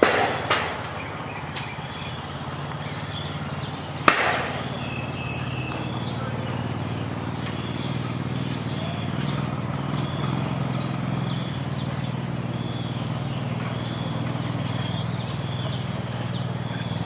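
Rural village ambience with small birds chirping over and over and a low steady hum beneath. Sharp knocks stand out: two close together at the start and a louder single one about four seconds in.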